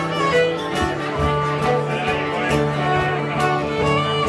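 Live band playing an instrumental tune: a held melody over a sustained low note, with a steady beat.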